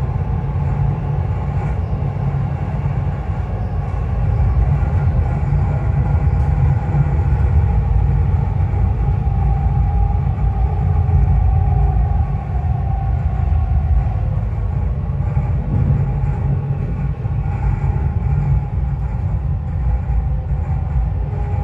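Dubai Metro train running at speed, heard from inside the car: a steady heavy rumble of wheels on rail with a faint steady motor whine above it.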